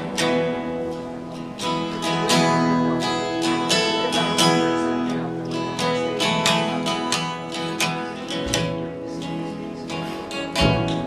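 Two acoustic guitars strummed and picked together in an instrumental passage, with a couple of low thumps in the second half.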